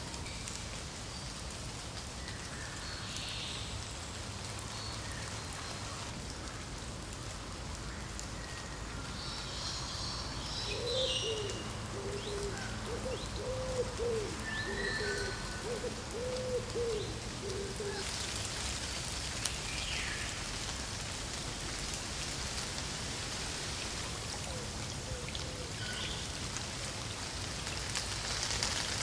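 Steady rain pattering on ground, water and leaves, heavier from about two-thirds of the way in. Birds call over it: scattered high chirps and, through the middle, a low call repeated about eight times.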